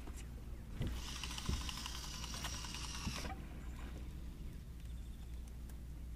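Okuma Classic XT levelwind baitcasting reel buzzing for about two and a half seconds, then stopping abruptly, with a few low knocks on the aluminium boat.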